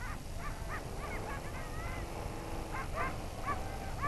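A herd of harp seals calling on the ice: many short yelping calls, each rising and falling, several a second and overlapping, with a few longer drawn-out calls. A steady low rumble lies underneath.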